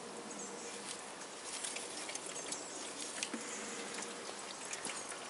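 Small handling noises in an engine bay: light ticks and scratches as a wiring harness and coolant hoses are moved by hand, over a steady background hiss.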